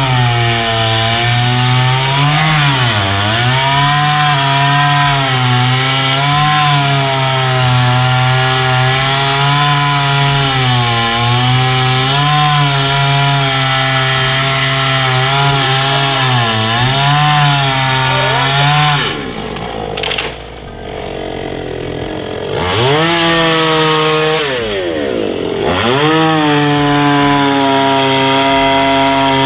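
Petrol chainsaw running at high revs, its pitch sagging and recovering several times as it works through bushes. About two-thirds of the way in the throttle drops back and the engine runs lower and quieter for a few seconds, then revs up again with a couple of quick rises and falls.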